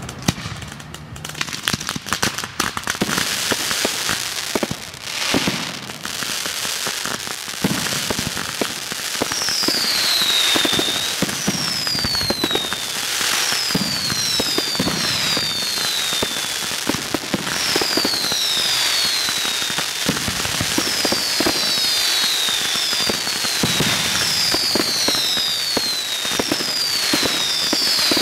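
Fireworks display: dense, continuous crackling and popping of bursting shells and sparks. From about ten seconds in, whistling fireworks join in, many short whistles that each fall in pitch, often overlapping.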